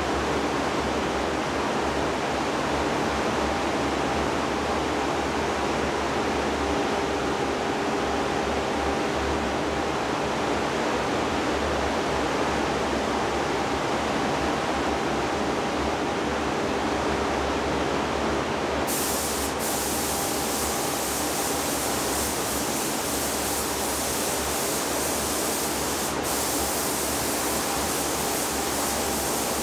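Paint booth ventilation running as a steady rushing noise with a faint hum. About two-thirds of the way through, the hiss of a spray gun laying clear coat joins in, with one short break near the end.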